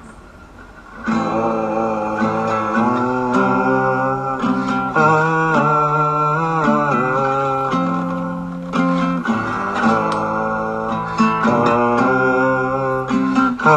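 Instrumental opening of a song led by acoustic guitar, coming in about a second in and playing a slow chord progression.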